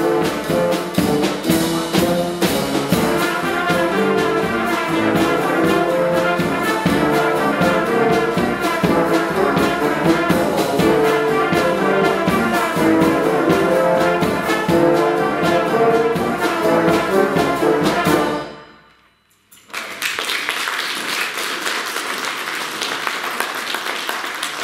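Brass band music with trumpets and trombones and a steady beat, stopping abruptly about three-quarters of the way through. After a moment's silence comes an even, hissy noise.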